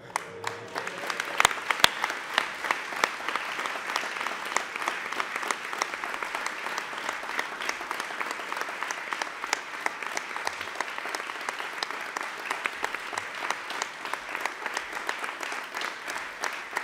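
A large audience applauding, the clapping breaking out suddenly and keeping up steadily.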